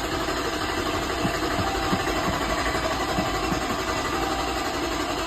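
SRT-swapped Chrysler 300 engine being started after the gas pedal is pumped. It runs loud and steady with uneven low knocks underneath, on an engine that has been hard to start.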